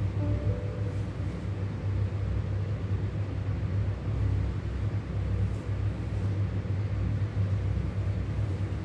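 Background music in a sparse passage: a steady low bass rumble with only faint held notes.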